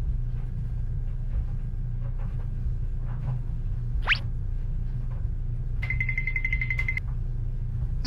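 A steady low drone, with a short rising whistle about four seconds in and a buzzing electronic tone lasting about a second near the six-second mark.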